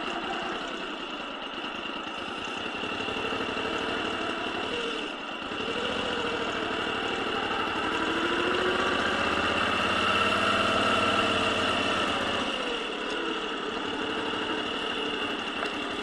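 Moto Guzzi V7 Stone's air-cooled transverse V-twin running at low revs as the motorcycle rolls slowly. The engine note picks up about six seconds in and eases off again a few seconds before the end.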